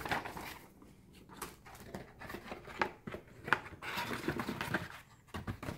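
Cardboard packaging handled by hand as a speaker box is opened and the speaker is lifted out of its cardboard insert, with scattered light rustles, scrapes and small knocks.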